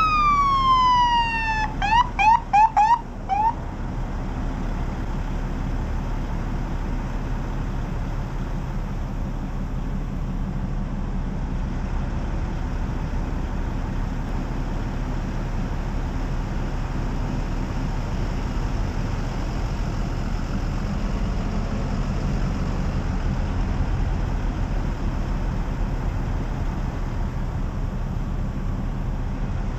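Police escort car's siren falling in a long wail, then a few quick yelps that stop about three and a half seconds in. After that comes a steady low rumble of vehicle engines.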